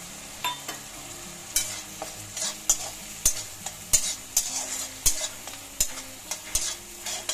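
Metal spatula stirring and scraping tomato and onion masala in a black kadai, over a steady sizzle of frying. The clicks and scrapes of the spatula on the pan come irregularly, about twice a second, from about a second and a half in.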